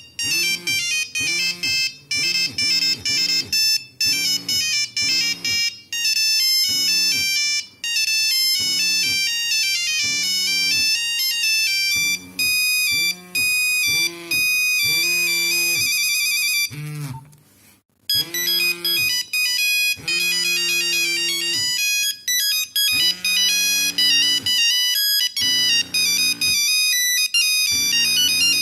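Nokia 3410 mobile phone playing its built-in ringtones through its small speaker: a beeping melody of short notes. The tune breaks off about 17 seconds in, and a different ringtone starts about a second later.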